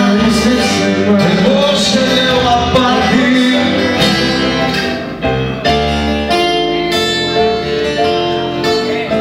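Live acoustic guitar strumming chords under a man singing in Greek, his voice wavering on a held line for the first few seconds; then the guitar carries on with even strums.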